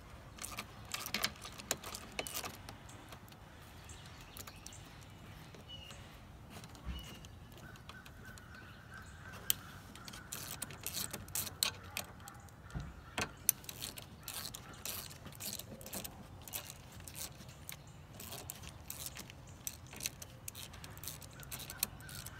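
Irregular light metallic clicks and clinks from a socket ratchet, extension and bolts as mounting bolts are fitted and turned in. The clicks are sparse at first and come thicker from about halfway through.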